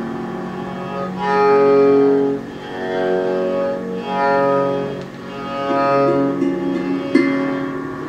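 Slow ambient music: a Yamaha PSS-170 keyboard loop of sustained chords that swell in and out four times. A sharp struck note sounds near the end.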